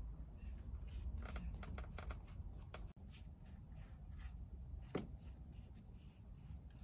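Paintbrush dabbing and stroking on watercolor paper in a run of short strokes, with one sharper tap about five seconds in, over a low steady rumble.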